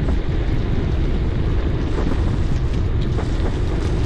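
Steady wind rumble over the action camera's microphone while riding a gravel bike, mixed with tyre and road noise from rough, broken asphalt and a few faint knocks.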